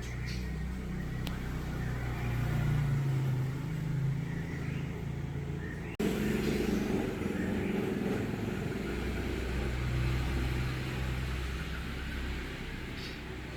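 A motor vehicle's engine running with a steady low rumble, broken by an abrupt cut about six seconds in, after which it carries on slightly louder.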